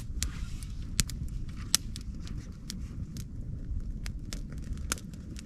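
Wood campfire crackling, with irregular sharp pops and snaps from the burning logs, over a steady low rumble.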